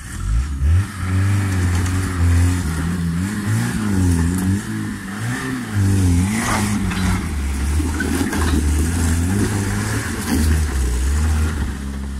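Suzuki Vitara 4x4 engine running under load while crawling over rocks, its revs rising and falling again and again as the throttle is worked.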